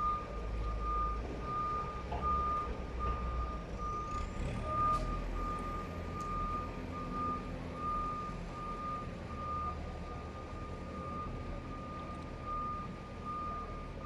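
Reversing alarm on a heavy vehicle beeping steadily, about two beeps a second, with its engine running low underneath.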